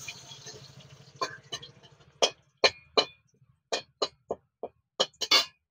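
Metal spatula knocking and scraping against a metal wok while stirring dry red chillies and bay leaves in oil: about a dozen sharp clicks, irregularly spaced, with a faint frying sizzle dying away in the first second.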